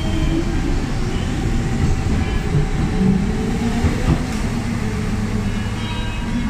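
Subway train pulling out of the station and running off into the tunnel: a steady, loud rumble of wheels on rails, with a single sharp clack about four seconds in.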